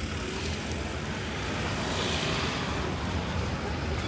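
Street traffic: a steady low rumble with a vehicle passing, loudest about two seconds in.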